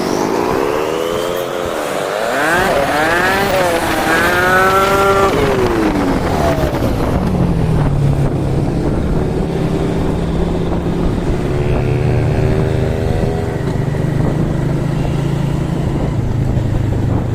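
Honda CG 125 motorcycle's single-cylinder four-stroke engine, played back fast-forwarded so its pitch is raised to a funny sound. Its pitch swoops up and down quickly through the first six seconds as it revs and changes gear, then runs at a steadier pitch.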